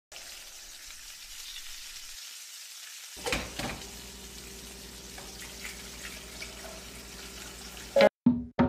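Chicken and sausage rice cooking in a clay pot over a gas flame, sizzling as a steady hiss with a few crackles. Music comes in at the very end.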